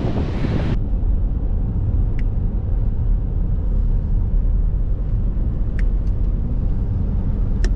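Steady low rumble of a car driving on the road, starting after an abrupt change about a second in, with a few faint ticks.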